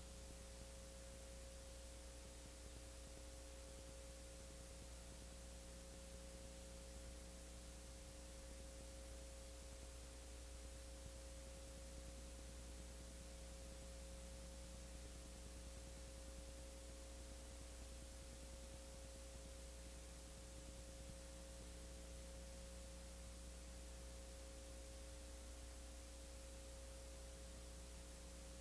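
Near silence: a steady electrical hum with a faint mid-pitched steady tone and hiss, the line noise of a silent home-movie transfer; nothing from the pictured scene is heard.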